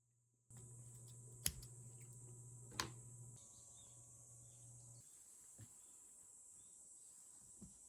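Faint, steady high-pitched insect chorus that starts abruptly, with a low hum beneath it that drops away partway through. Two sharp clicks come early on, and two fainter ticks near the end.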